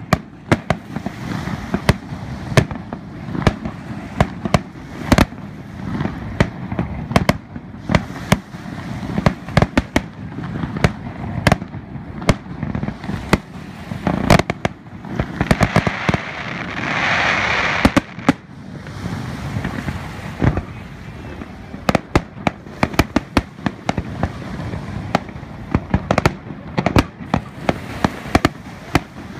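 Aerial fireworks display: shells bursting in a rapid, irregular string of sharp bangs, with a stretch of hissing crackle about halfway through.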